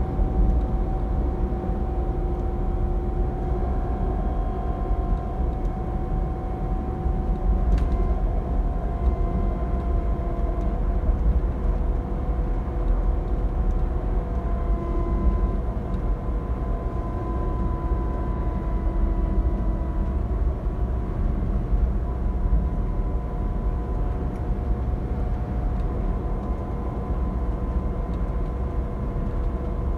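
Inside a Van Hool TX16 Alicron coach on a Scania K360EB4 chassis on the move: a steady low rumble of engine and road noise with faint, slowly drifting whining tones.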